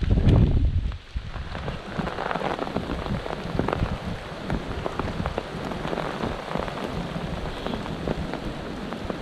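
Footsteps through deep beech leaf litter in the rain: a dense, irregular crackle and patter of wet leaves. A gust of wind rumbles on the microphone in the first second.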